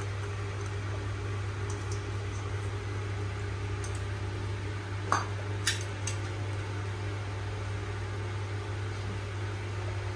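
A steady low machine hum runs throughout. Two short clinks, like a utensil against a dish, come a little past halfway.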